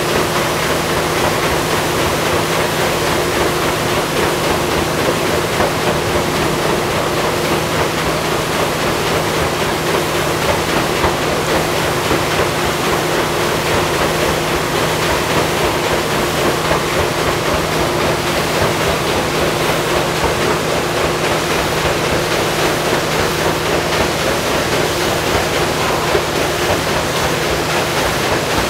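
A paddle boat under way: a steady rush of water churned by its paddle wheel, with a constant low engine hum underneath.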